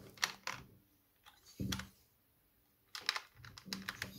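Scattered light clicks and small knocks in a few short clusters: an Allen key working the bar bolt of a plastic mini cordless chainsaw while the tool body is handled, as the chain is tightened.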